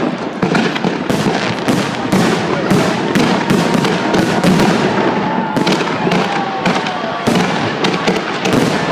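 Festive fireworks salute: a rapid, continuous barrage of sharp bangs and crackles from the shells bursting overhead.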